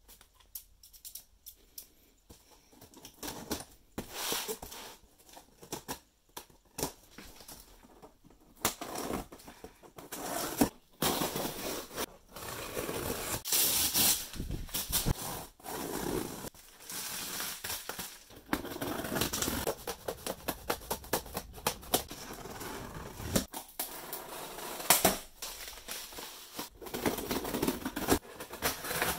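Scissors slicing and scraping through packing tape on cardboard shipping boxes, with crinkling tape and rustling cardboard. It comes as a run of irregular sharp clicks and short rasping strokes, starting a few seconds in.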